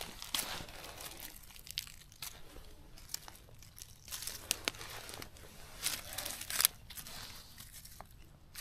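Irregular rustling and crunching of dry leaf litter and twigs on the forest floor, with a few sharp snaps and a louder stretch of rustling about six seconds in, as someone moves about and handles the ground while picking mushrooms.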